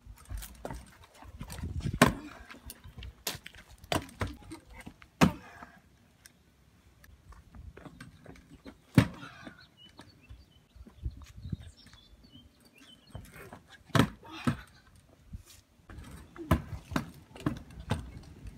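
Stunt scooter on concrete: the small wheels rumbling as it rolls, broken by a series of sharp clacks and rattles a few seconds apart as the deck and wheels land and hit the pavement.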